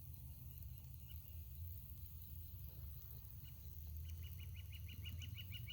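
An animal chirping rapidly and evenly, about five high chirps a second, starting about four seconds in, over a steady low hum.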